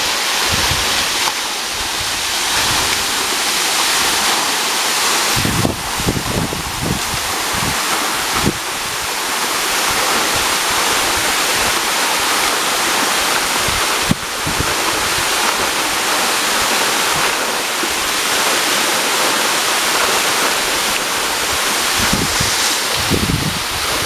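A waterfall pouring down a rock face, a loud, steady rush of falling and splashing water. Low rumbles of wind on the microphone come and go, around the first third and again near the end.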